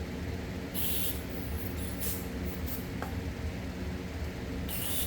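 Four short hissing spray bursts, the first and last longest, as oil is washed off a Ford 460 engine's China walls before the intake goes on.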